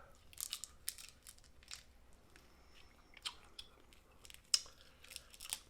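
Snow crab legs being cracked and eaten: irregular sharp cracks and crunches of shell with chewing, the loudest crack about four and a half seconds in.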